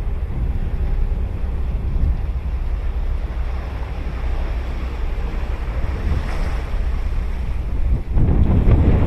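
Ocean surf washing on the shore, with wind rumbling on the microphone. The surf swells louder about eight seconds in.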